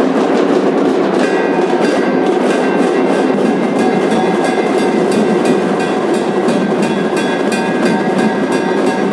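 Loud, dense din of a large crowd, with a fast, even tapping rhythm running through it from about a second in and a steady high tone above it.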